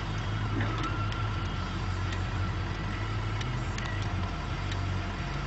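Diesel engines of a rotary snowplow train running steadily, a low even hum with no change in speed.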